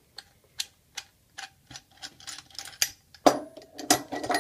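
Hinged stainless-steel sanitary clamp being unscrewed and taken off a diaphragm valve: a string of light metal clicks and ticks, then louder metallic clattering about three seconds in as the clamp comes free.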